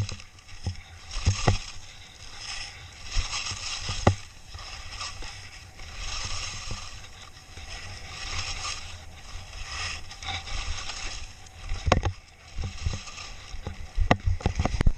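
Skis carving and scraping over packed snow through a series of turns, each turn a surge of hissing scrape. Sharp thumps come in between, a cluster of them near the end.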